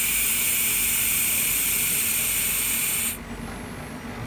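Handheld 1 kW fiber laser welder running a seam on 2 mm aluminum: a steady, loud, high-pitched hiss from the welding head and weld, cutting off abruptly about three seconds in as the weld stops.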